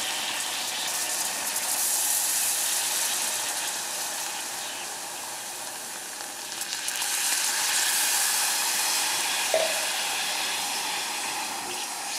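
Hot caramelized sugar in an aluminium saucepan hissing and sizzling as water is poured into it a little at a time: the water flashes to steam on contact, turning the caramel into a liquid syrup. The hiss swells about two seconds in and again past the middle.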